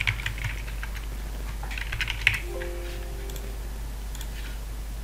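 Computer keyboard typing, in two short bursts of clicks: one at the start and another about two seconds in. A short steady low tone sounds for about a second just after the second burst, over a constant low hum.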